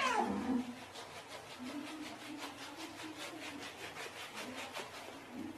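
Hands scrubbing a soapy wet cat's fur in a tub: a quick, even rubbing at about four strokes a second. A cat's meow trails off at the very start.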